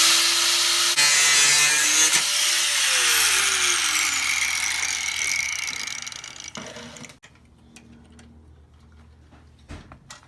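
An electric grinder with a cut-off wheel cutting through a metal brake linkage rod. It makes a loud, steady hiss over a motor whine, then the motor winds down in pitch and the noise fades away, and the last few seconds are quiet.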